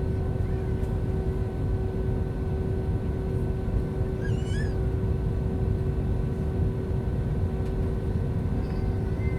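Airbus A320 cabin noise in flight: the steady rumble of airflow and the IAE V2527 engines with a constant hum. A faint, brief wavering squeak about halfway through.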